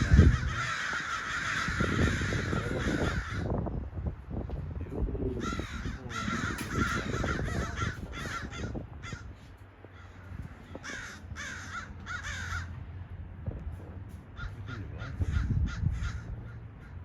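Crows cawing: harsh calls repeated in quick runs over the first few seconds, again around six and eleven seconds in, with shorter single caws near the end.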